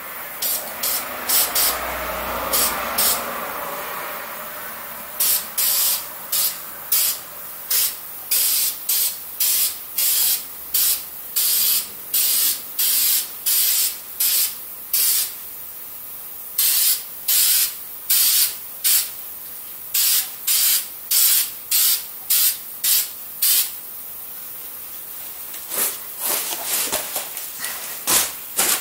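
Aerosol spray can of VHT high-temperature gray primer spraying in many short bursts of hiss, each about half a second long, more than one a second, as a coat of primer goes onto a brake caliper. The bursts stop for a couple of seconds near the end, then a few more follow.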